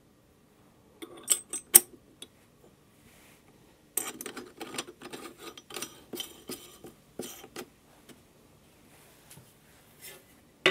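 Steel parts of a meat grinder head being fitted together by hand: a few sharp metal clinks about a second in, then a couple of seconds of clattering and scraping as the perforated grinding plate goes on over the cutting knife. The grinder motor is not running.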